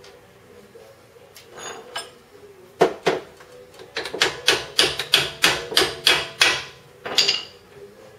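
Hammer blows on metal at a car's front hub and steering linkage: two sharp strikes, then a quick run of about ten, roughly three or four a second, and one more near the end.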